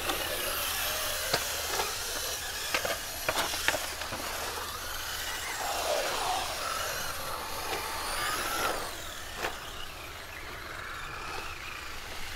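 Electric radio-controlled trucks driving on concrete, their motors whining up and down in pitch as they speed up and slow down, with several sharp knocks, most of them in the first few seconds.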